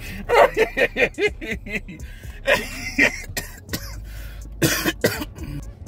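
A man coughing in a series of short bursts, with throat clearing; the two loudest coughs come near the end.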